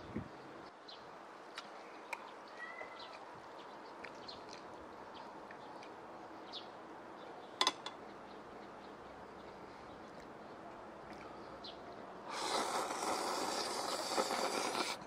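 A person loudly slurping a mouthful of spicy cold chewy noodles (jjolmyeon), starting about twelve seconds in and lasting nearly three seconds. Before that only faint background with a few light clicks and one sharper click about halfway.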